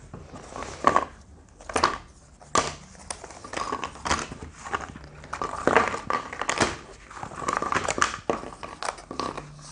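Cardboard hex tiles being punched out of die-cut board-game sheets: a run of irregular crisp snaps and crinkling as the pieces pop cleanly free of the frame, with the sheets rustling against each other.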